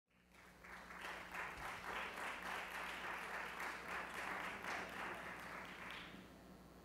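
Theatre audience applauding, fading out near the end.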